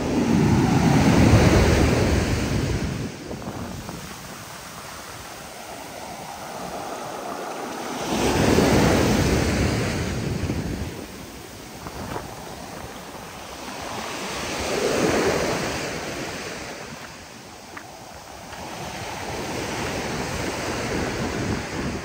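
High surf breaking on a beach: four rushes of breaking waves, several seconds apart, each swelling and then fading back into a steady wash of water.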